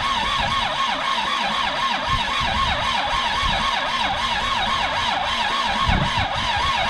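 Starter motor cranking the Isuzu P'up's four-cylinder turbo diesel after 28 years of sitting, its whine rising and falling several times a second as the engine turns over against compression. The engine does not fire.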